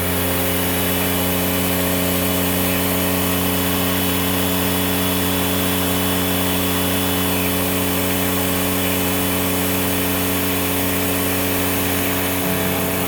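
A Hoover S3639 WindTunnel Plus canister vacuum running steadily, a constant motor hum and whine with no change in speed.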